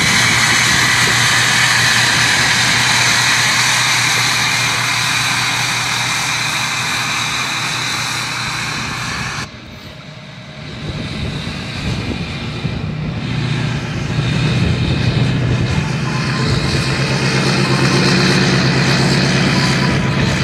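A steady mechanical drone, like an engine running, that drops suddenly about halfway through and comes back as a deeper hum.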